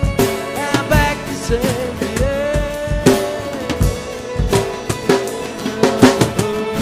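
A rock band playing live: a drum kit with kick, snare and cymbal hits keeps a beat under a sustained, bending melody line.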